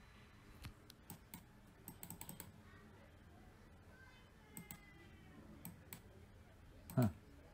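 Faint, scattered clicks of a computer mouse and keyboard, with a quick run of taps about two seconds in.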